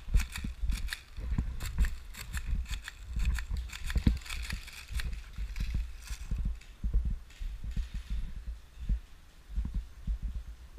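Irregular knocks and thumps over a low rumble, fading somewhat in the second half.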